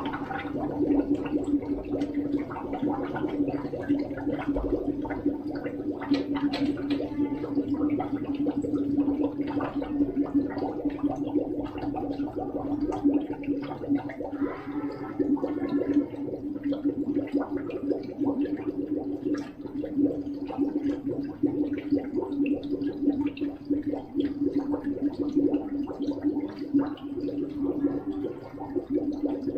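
Water gurgling and popping with air as it is filled into radiant floor heating loops, over a steady hum.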